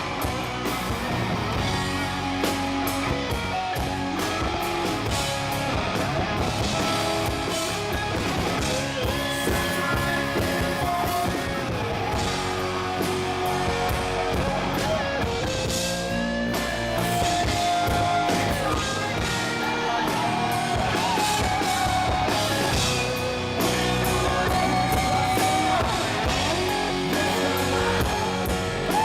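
Rock band playing live, with guitars and a drum kit, and a pitched lead line gliding up and down over it.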